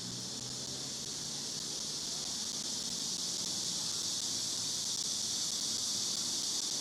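A steady, high-pitched chorus of insects, growing slightly louder.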